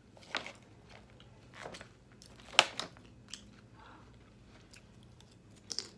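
Close-miked chewing of a forkful of salad, with a few sharp crunches scattered through, the loudest about two and a half seconds in.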